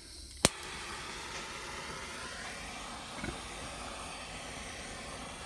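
A sharp click about half a second in, then the steady hiss of a gas torch flame heating a brass tray to run solder into its joints.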